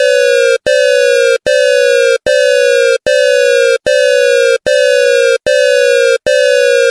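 Electronic emergency alert alarm: a loud tone that drops slightly in pitch over each beep. It repeats about nine times at a steady pace of just over one beep a second, with only very short breaks between beeps.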